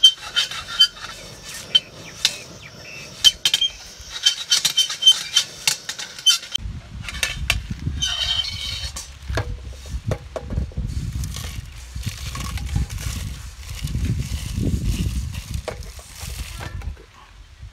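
Whole dry spices (dried red chillies, coriander seeds and the like) rattling and clinking against a stainless steel frying pan as the pan is shaken while they dry-roast, busiest in the first few seconds. A low rumble comes in at about six seconds, and near the end the roasted spices are tipped out of the pan into a blender jar.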